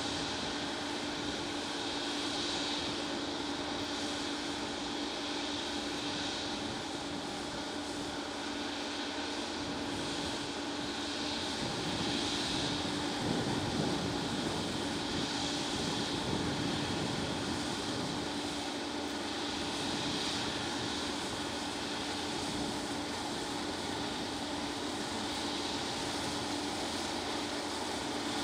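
Combine harvester running steadily at work, a constant engine and machinery drone that swells a little about midway.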